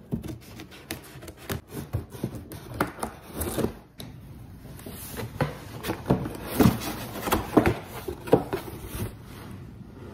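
Scissors slitting packing tape on a corrugated cardboard box, then the cardboard flaps being pulled open and handled: many quick scrapes, rustles and knocks, louder in the second half.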